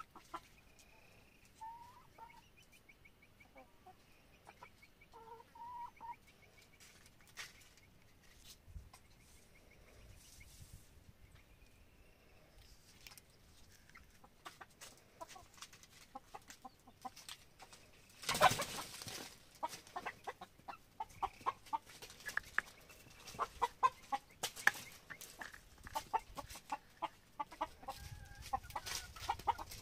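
Chickens clucking: a few soft scattered calls at first, then a run of quick, repeated clucks through the second half. A brief loud rustle cuts in about two-thirds of the way through.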